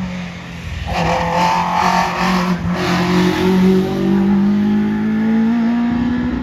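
VW Polo hillclimb race car's engine under full throttle, its pitch climbing steadily in the second half as the revs rise. A louder, harsher stretch of engine and exhaust noise comes from about one to three seconds in.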